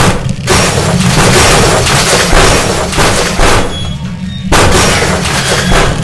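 Sound effect of a ship's steel hull hitting and scraping along an iceberg: a deep rumble under tearing metal and shattering ice. It eases off briefly about two-thirds of the way through, then comes back suddenly at full loudness.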